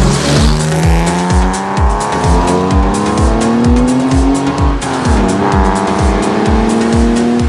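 Electronic dance music with a steady kick drum, about two beats a second, and ticking hi-hats. Under it runs a pitched tone that climbs for several seconds, drops sharply about five seconds in, and climbs again.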